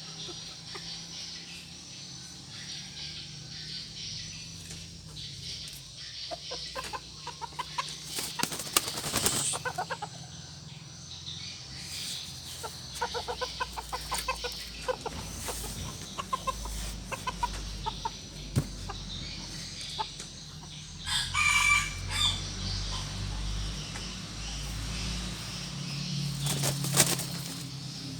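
Red junglefowl clucking and calling while it is held, with bursts of wing flapping and one short, loud squawk about three-quarters of the way through.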